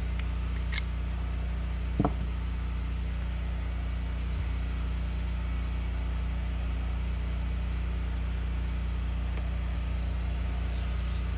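Steady low background hum, with a light click just under a second in, a sharper knock about two seconds in and a faint tap later, from small screws and a screwdriver being handled against a carburetor.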